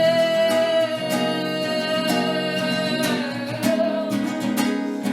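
A sung melody over acoustic guitar. The voice holds one long note while the guitar keeps up a steady plucked accompaniment.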